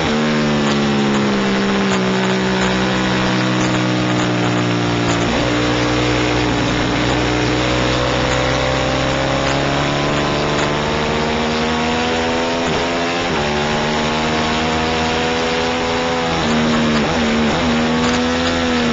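Racing motorcycle engine heard from onboard at race pace. Its pitch falls as it slows at the start, breaks sharply at a gear change about five seconds in, then climbs steadily under acceleration, with two more quick gear changes a little past halfway and a few brief blips near the end before the pitch drops again.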